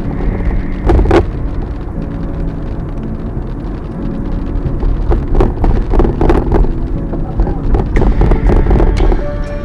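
Car driving: a steady low road and engine rumble, with a few short knocks.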